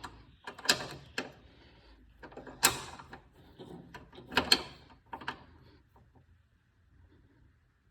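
Metal clanks of a socket wrench being fitted to and worked on the strut's 13 mm nuts, about five sharp knocks over the first five seconds.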